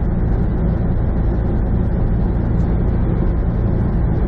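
Steady drone of a semi truck at highway cruising speed heard from inside the cab: diesel engine hum mixed with tyre and road noise, low and even throughout.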